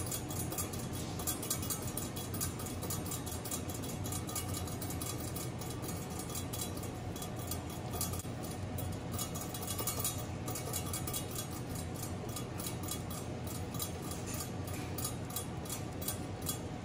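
Many small crisp clicks and snaps as fingers push the seedy pith out of sliced bitter melon rings, over a steady low hum.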